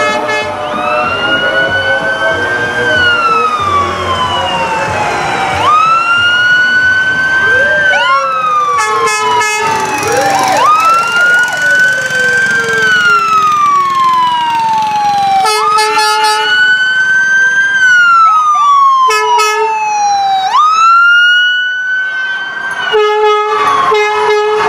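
Fire truck siren wailing, each cycle rising quickly and falling slowly, repeated about every five seconds. Short blasts of a deep truck horn sound several times in between, from about nine seconds in.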